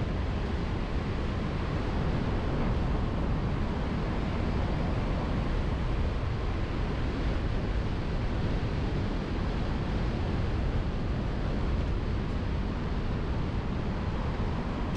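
A car driving, recorded on a car-mounted camera's microphone: steady wind noise over the car's road and engine noise, heaviest in the low end.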